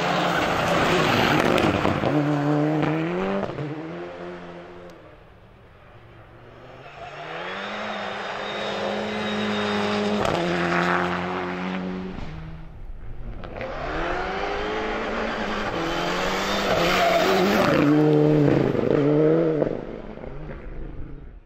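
Mitsubishi Lancer Evolution rally car's turbocharged four-cylinder engine revving hard on a gravel stage, its pitch climbing and dropping in steps as it shifts gears. It comes in three loud passes, falling quieter about five seconds in and again about thirteen seconds in.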